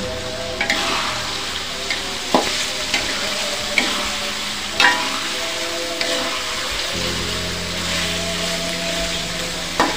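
Beef and spice paste sizzling in hot oil in an aluminium wok, being sautéed until the spices are cooked. A metal spoon stirs it and clinks and scrapes against the wok a few times.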